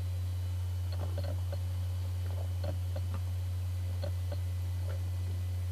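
A steady low hum under faint, scattered small clicks and lip smacks of a man tasting a sip of beer.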